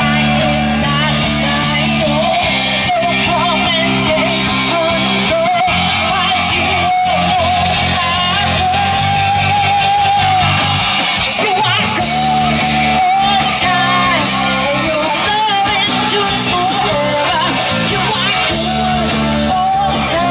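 Gospel song: a lead voice singing a wavering melody over steady instrumental backing, with held bass notes.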